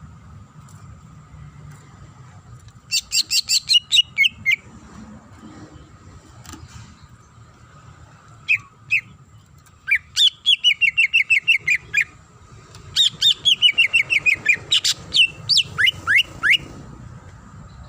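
Greater green leafbird (cucak ijo) singing its varied song: bursts of rapid chirping notes, runs of quick falling notes, and a few sharp downward-sweeping whistles near the end, over a faint steady hum.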